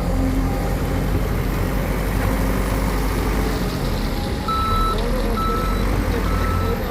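Heavy diesel machinery running steadily, with a backup alarm giving three steady high beeps, about one a second, starting about halfway through.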